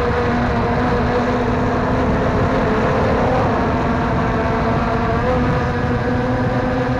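Quadcopter drone's motors and propellers running in flight: a steady buzzing hum whose pitch shifts slightly about three seconds in and again about five seconds in.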